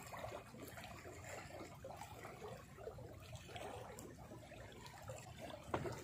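Faint lapping of small waves against the shoreline rocks, with a light click or two near the end.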